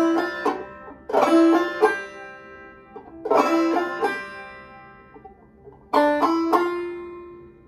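Five-string Gold Tone banjo played clawhammer style in double C tuning (gCGCD): four short groups of struck notes and small chords, each left to ring and fade before the next.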